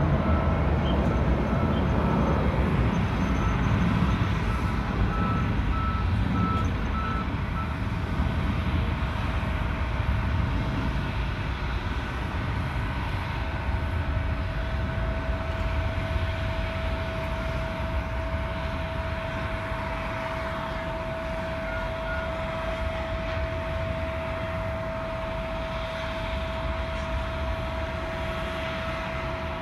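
Airport apron noise: the steady rumble of jet airliner engines, slowly easing off. There is a run of short beeps in the first several seconds, and a steady whine comes in about halfway through.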